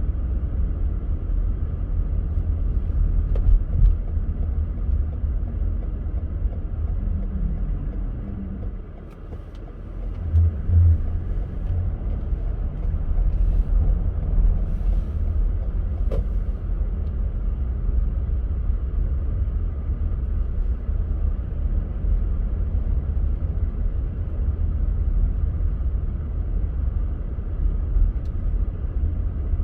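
Steady low rumble of a car driving, its road and engine noise heard from inside the vehicle. The rumble dips briefly about nine seconds in, followed by a couple of short thumps.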